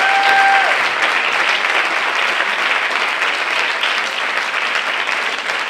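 Theatre audience applauding steadily at the end of a dance performance, with one brief cheer near the start.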